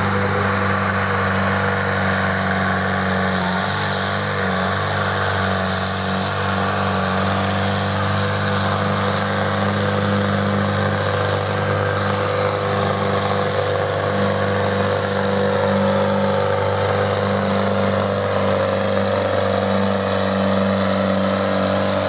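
Pulling tractor's engine running hard and steady under full load as it drags the weight sled down the track on a full pull. A high whine rises in pitch over the first few seconds, then holds.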